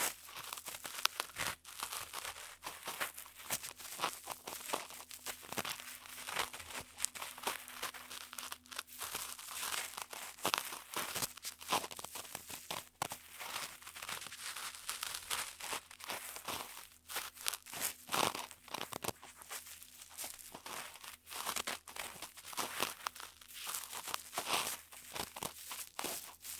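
Ear-cleaning sounds on a binaural dummy-head microphone: a tool scratching and rubbing against the silicone ears, giving a dense, close run of crackling and scraping with many sharp clicks.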